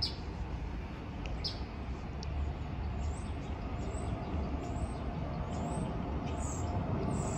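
A small bird chirping repeatedly in short, high, downward-sliding notes over the low, steady rumble of an Airbus A320 jet airliner flying high overhead. The rumble grows louder toward the end.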